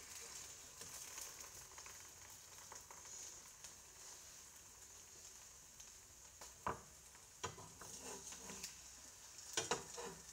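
An egg frying in a pan: a faint, steady sizzle. A few sharp knocks stand out, one about two-thirds of the way in and a couple near the end.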